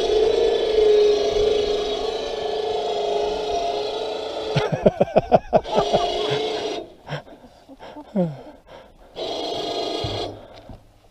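Harbor Freight 2500 lb 12-volt electric winch on a truck crane running under load with a steady whine as it hoists a log. About halfway it is bumped on and off in a quick run of short pulses, runs on briefly, then runs again for about a second near the end as the log is set down.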